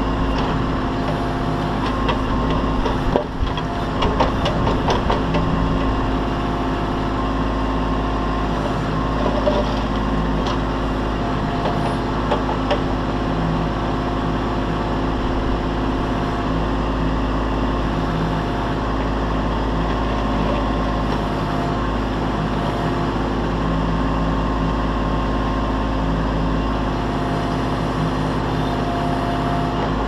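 Kubota B2650 compact tractor's three-cylinder diesel engine running steadily as it drives the BH77 backhoe's hydraulics. A cluster of sharp knocks comes about three to five seconds in, with a few more around twelve seconds.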